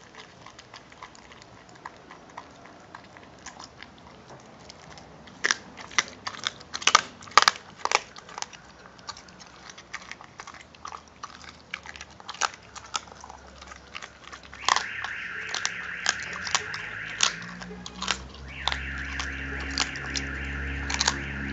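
A dog chewing and crunching raw turkey drumstick and bone, with wet bites and sharp cracks. A run of loud cracks comes a few seconds in. About two-thirds of the way through, a steady humming noise starts up underneath the chewing.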